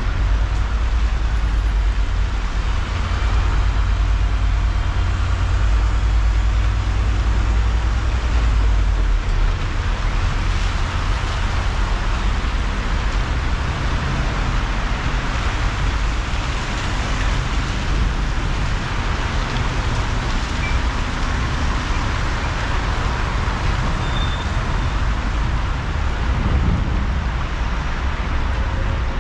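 Car driving on a wet road: a steady hiss from the tyres on the wet surface over a deep road and engine rumble, which eases about nine seconds in.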